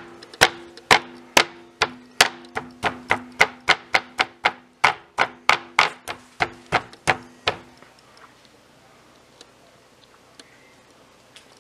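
Meat being pounded with a meat tenderizer mallet: a fast run of about two dozen sharp whacks, roughly three a second, that stops about two-thirds of the way through.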